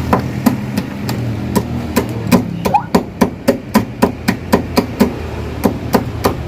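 Hammer striking the cabin-roof panel of a Daihatsu Taft Hiline in a steady run of sharp blows, about four a second, over a low steady hum.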